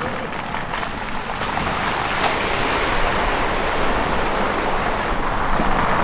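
Ford Kuga SUV driving slowly through a shallow ford, its tyres swishing and splashing through the water in a steady rush that grows from about two seconds in.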